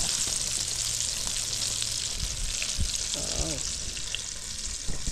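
Flour-coated chicken pieces frying in hot oil: a steady, dense sizzle with faint crackles.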